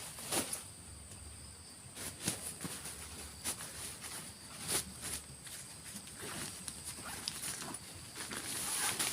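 Scattered knocks and rustles from someone handling things at a camp site, about a dozen irregular strikes with a louder rustling near the end, over a steady high drone of forest insects.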